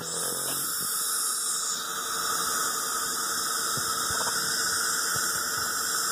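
Dental saliva ejector suction hissing steadily in a patient's mouth, with a few faint clicks of tweezers on teeth.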